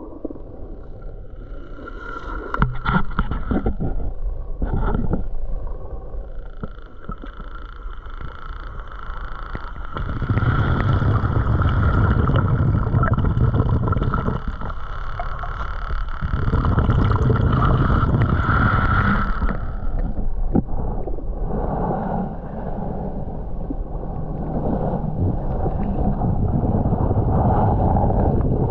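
Muffled underwater rumble and swish of water moving against a submerged action camera as a snorkeler swims through weed beds, swelling and easing every several seconds. A steady high whine with overtones runs through the middle, starting about five seconds in and stopping about twenty seconds in.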